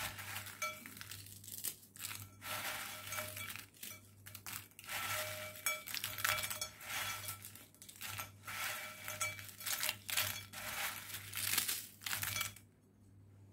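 Crisp dry biscuits being crushed and broken by hand in a ceramic bowl: repeated bursts of crunching and crackling, with pieces clinking against the bowl. The crushing stops near the end.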